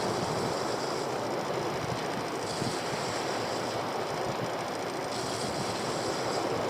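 Steady rushing noise of wind and water around a small boat at sea.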